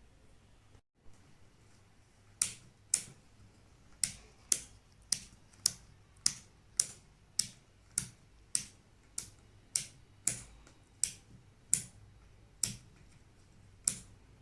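A small switch in a homemade aloe-vera-battery LED circuit clicking on and off over and over, about eighteen sharp clicks at roughly two a second, the first few in pairs.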